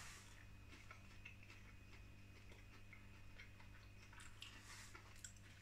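Near silence: a low steady hum with faint, irregular small clicks.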